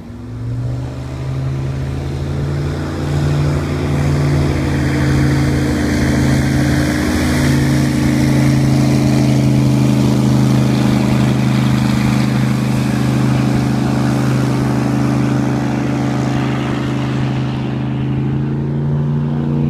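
Airboat passing on the river, its engine and air propeller making a loud, steady drone with a hiss on top; it is running slowed down. The drone swells about a second in and the hiss fades near the end.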